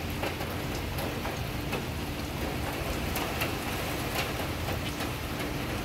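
Steady hurricane rain falling, with scattered sharp ticks of drops.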